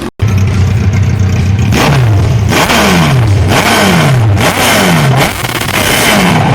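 Motorcycle engine with a straight pipe and no muffler, idling and then revved in about five quick throttle blips, each falling back before the next, and settling back to idle near the end.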